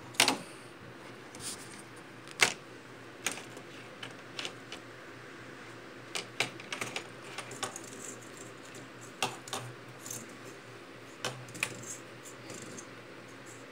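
Plastic fidget spinner knocked and clattering on a wooden desk as a kitten bats at it: irregular sharp clicks and taps, the loudest near the start and about two and a half seconds in.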